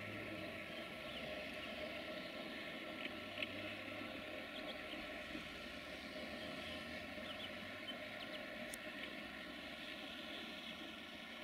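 Škoda class 242 electric locomotive approaching at a distance: a faint, steady running hum and low rumble, easing off slightly near the end.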